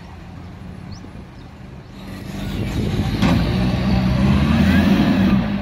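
Toyota forklift engine running steadily, growing clearly louder from about two seconds in as the forklift works close by, with one sharp click a little after.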